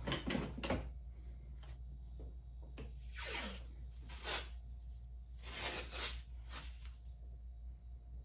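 Green FrogTape painter's tape being pulled off its roll in several raspy, zipping pulls, one falling in pitch, with a few light clicks of handling near the start.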